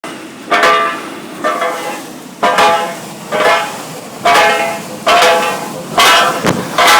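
Sewer manhole venting air under pressure, giving loud horn-like hoots that repeat evenly about once a second, each under a second long.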